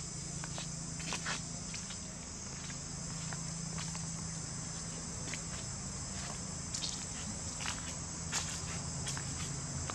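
A steady insect chorus, high and unbroken, with a low steady hum beneath it. Scattered light clicks and footsteps sound over it, a few louder ones near the end.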